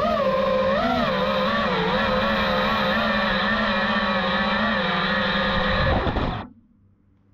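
FPV quadcopter motors whining as a stack of tones that waver up and down in pitch with the throttle, cutting off about six and a half seconds in.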